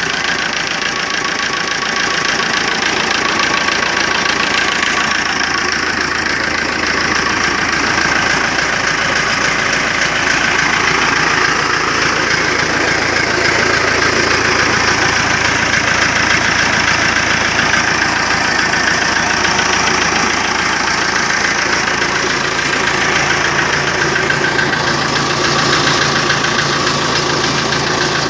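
Massey Ferguson 285 tractor's diesel engine idling steadily, with an even knocking clatter.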